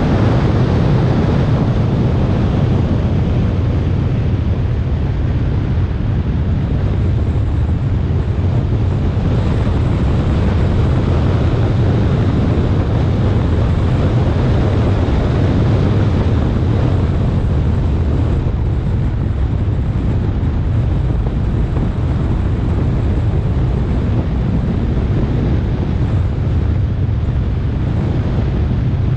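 Steady low rumble of wind buffeting the microphone of a hood-mounted camera on a Lamborghini Huracán at track speed, with the car's road and drivetrain noise beneath it.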